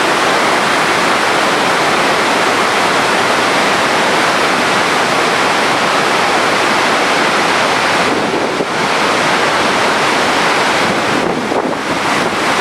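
Steady rush of running water, a dense even hiss with a couple of slight brief dips in level late on.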